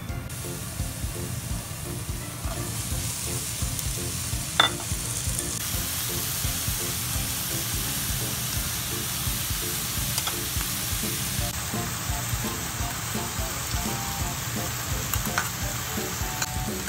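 Minced onion and ground meat frying in oil in a nonstick pan, a steady sizzle as it is stirred, with one sharp tap of a utensil about four and a half seconds in. The sizzle jumps up or down abruptly a few times.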